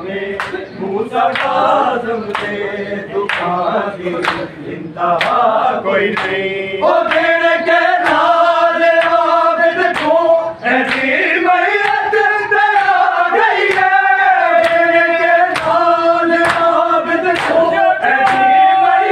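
A group of men chanting a noha together, in a lament over the martyrdom of Imam Musa Kazim, with rhythmic chest-beating (matam): sharp slaps about once a second. The chanting grows louder about seven seconds in.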